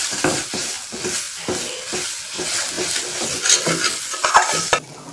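Steel spatula stirring and scraping a thick masala paste around a steel kadai, with the oil sizzling as the masala fries. The sounds stop abruptly near the end.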